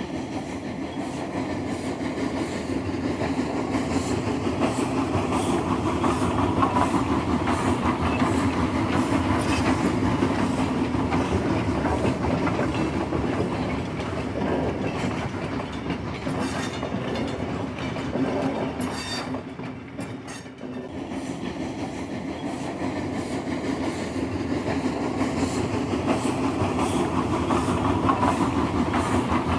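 Railway train running along the track, its wheels clicking rhythmically over the rail joints, with a brief drop in the noise about two-thirds of the way through.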